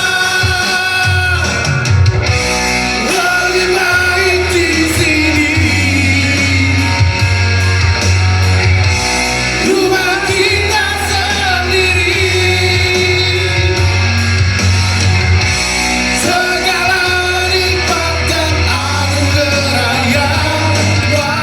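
Rock music: a band with electric guitar, bass and drums playing on between sung lines, with singing.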